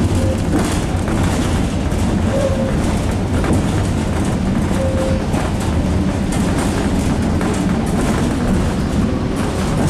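Tram running along its track, heard from inside the car: a steady low rumble with rattling, broken by three short squeaks.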